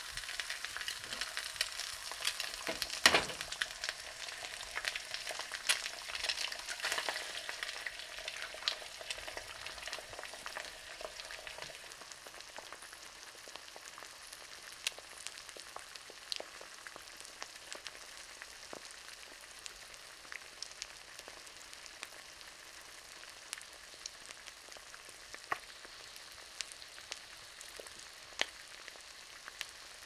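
An egg frying in a nonstick skillet on an electric coil stove: a steady sizzle with scattered crackles and pops, louder for the first dozen seconds, then settling lower. A sharp knock about three seconds in.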